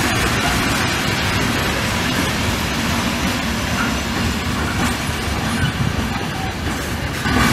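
Freight train of flat wagons loaded with pipes rolling past, its steel wheels on the rails making a steady, continuous rumble.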